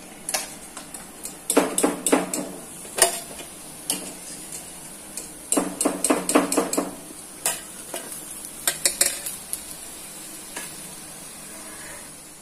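Oil sizzling steadily in a steel frying pan, broken by clusters of metal clinks and scrapes from a spoon against the pan and plate as the fried needlefish are lifted out of the oil.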